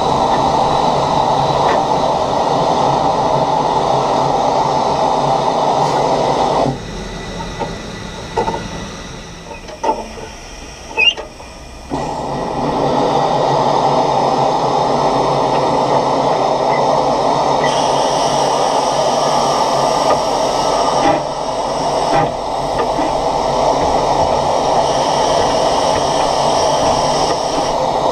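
SECR H Class 0-4-4 tank steam locomotive running along the line, a steady noise of the engine and wheels heard from on the locomotive. About a quarter of the way in it drops much quieter for roughly five seconds, with a few sharp clicks, then comes back at full level.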